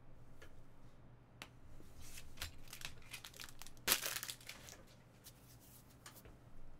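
Plastic packaging crinkling and tearing in the hands, a run of irregular rustles with one sharp rip about four seconds in, as a trading-card box or pack is opened.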